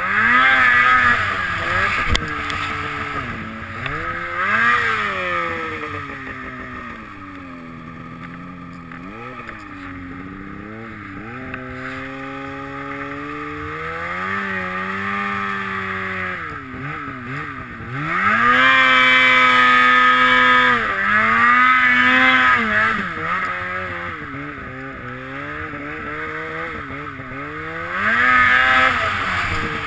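Snowmobile engine working through deep powder, its pitch rising and falling as the throttle is opened and eased off. It is loudest in a high-revving stretch about two-thirds of the way in and again briefly near the end.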